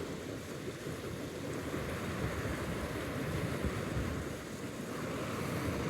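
Steady rush of water flowing in at a trout pond's inlet, with wind buffeting the microphone.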